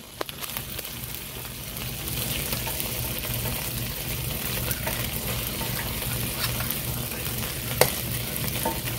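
Pulled pork and brisket sizzling under melting cheese slices on a hot flat-top griddle, a steady frying hiss. A metal spatula scrapes and clicks against the plate, with one sharper click near the end.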